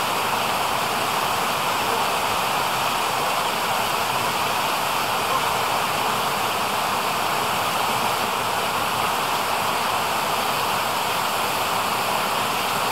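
Steady, even rush of flowing stream water, with no breaks or changes.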